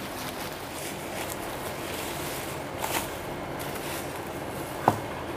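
Plastic bubble wrap rustling and crinkling as it is pulled open and handled, with one sharp knock near the end.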